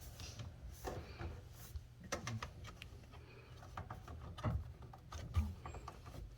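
Scattered clicks and knocks of plastic dishwasher parts being handled and fitted during reassembly, over a low steady hum.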